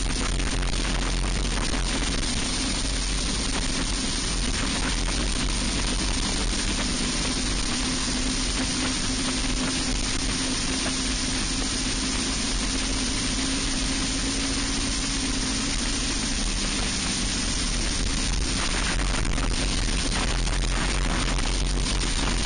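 Racing kart's single-cylinder Briggs & Stratton Animal four-stroke engine running at racing speed, heard from an onboard camera with heavy wind rush over the microphone. The engine note holds steady through the middle, then shifts a little near the end.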